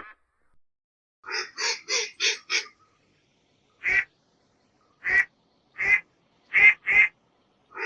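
Duck quacking: a quick run of five quacks about a second in, then after a pause five more single quacks spaced out, the last two close together.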